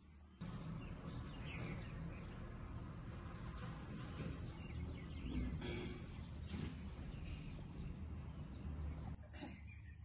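Outdoor ambience: a steady background hum with faint bird chirps. It starts suddenly about half a second in and drops away near the end.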